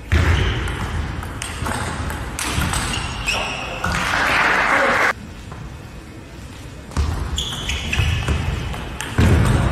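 Table tennis rallies: the ball clicks sharply off bats and the table, and shoes squeak briefly on the court floor as the players lunge. A burst of crowd noise rises around four seconds in, and the sound cuts abruptly between edited points.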